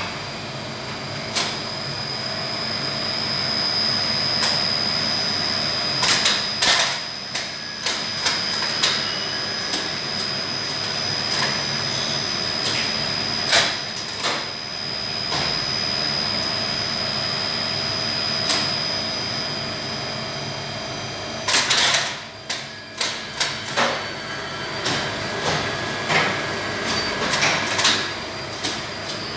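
Otis floor selector of a 1971 relay-controlled gearless lift tracking the moving car, its contacts clicking in irregular clusters, loudest about two-thirds of the way through. Under the clicks runs the steady hum of the machine room with a high whine that fades about two-thirds in.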